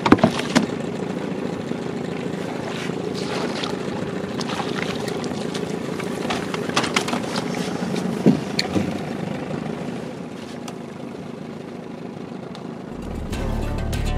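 Boat's outboard motor running steadily, with scattered knocks and clatter in the boat during the first half. Background music comes in near the end.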